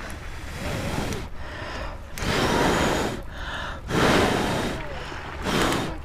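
Someone blowing hard on the smouldering end of a charred log to make it glow, four long puffs of breath.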